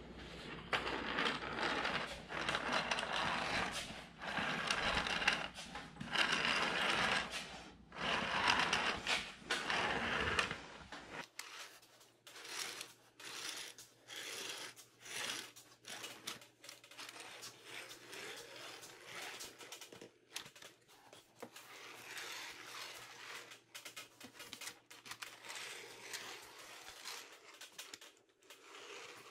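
Hand roller tool being pushed along the edge of a metal flashing panel, rolling it over into a 3/4-inch hem. The metal scrapes and rattles in repeated passes of a second or two each. About eleven seconds in this drops to quieter scattered clicks and scrapes over a faint hum.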